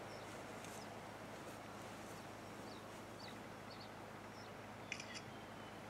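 Quiet outdoor ambience with a few faint, brief bird chirps, and a couple of short clicks about five seconds in.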